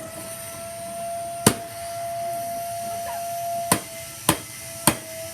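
Shark Rotator upright vacuum cleaner's motor running with a steady, even hum, broken by four sharp knocks: one about a second and a half in and three close together near the end.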